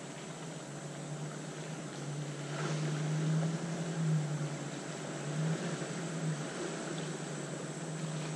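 Off-road SUV's engine running as it drives slowly through mud, a steady hum that grows a little louder about three seconds in.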